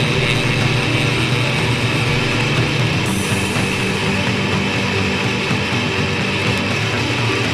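Indie/noise pop band recording in an instrumental passage: loud, dense electric guitar over a steady low end, with no singing.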